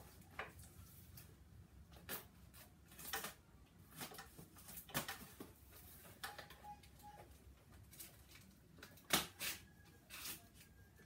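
A cardboard shipping box being handled and opened by hand: scattered rustles, crinkles and light knocks of cardboard flaps and packing, with one sharper knock about nine seconds in.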